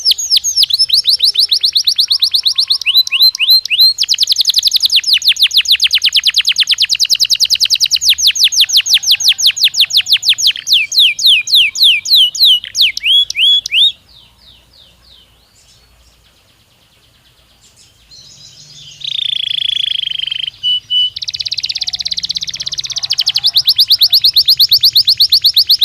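Belgian canary singing: long runs of fast, evenly repeated trilled notes, broken by a pause of a few seconds about halfway through. The song then resumes with a lower buzzing phrase and a dense rolling trill before the fast trills return near the end.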